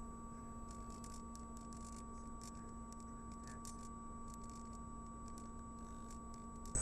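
Faint steady electronic hum made of a few constant pure tones over a low hiss, with scattered soft clicks.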